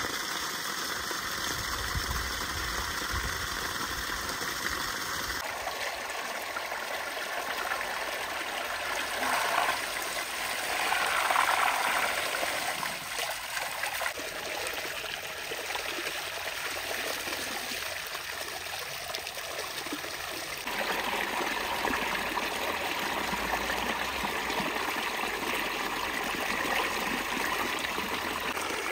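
Water gushing from a hose into a stone trough, then running water and splashing as meat is rinsed by hand in a plastic basin under the hose. A louder splashing stretch comes about ten seconds in.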